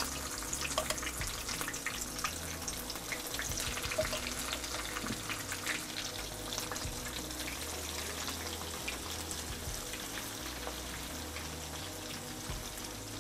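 Cornmeal-breaded okra deep frying in hot oil in a cast iron skillet: a steady sizzle dotted with many small, irregular crackles and pops, as more pieces are spooned into the oil.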